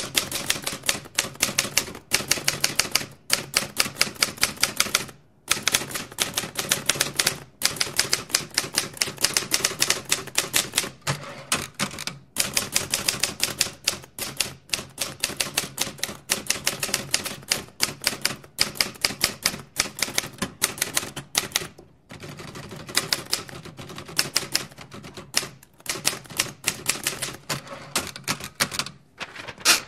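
Typewriter keys being struck in quick runs of sharp clicks, several a second, broken by short pauses every few seconds.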